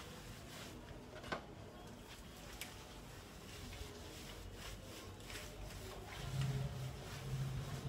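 Hands scrubbing a wet dog's soapy coat: quiet wet rubbing with a few faint ticks and one sharper click about a second in. A low hum starts about six seconds in, swelling and fading several times.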